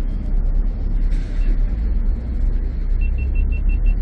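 Harbour ferry engines rumbling low and steady, heard from the open deck. A quick run of about seven short high beeps comes near the end.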